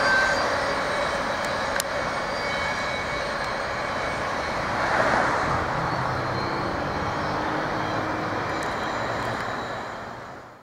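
Rear double-stack container cars of a freight train rolling away on the rails, a steady rumble of wheels on track. It fades out near the end.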